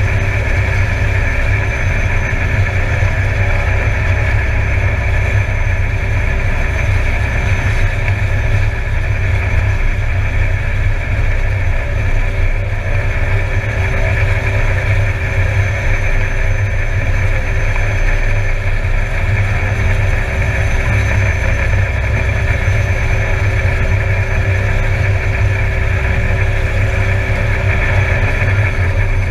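Air Tractor 402B's Pratt & Whitney PT6A turboprop engine running steadily at taxi power, heard from inside the cockpit: a low propeller drone under a constant turbine whine.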